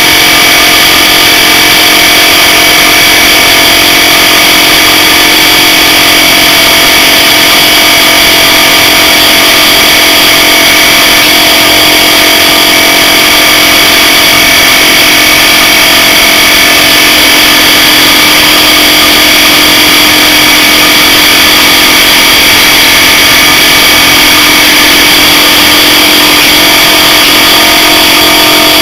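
Bulkon hermetic refrigerant compressor, its shell cut open, running with no oil: a loud, steady mechanical noise with several constant tones over a dense high hiss, the sound of a compressor being run dry to destruction.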